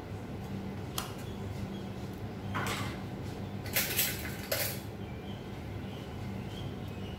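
Kitchen cookware and utensils clattering: a sharp click about a second in, then a few short clinks and scrapes between about two and a half and five seconds in, over a steady low hum.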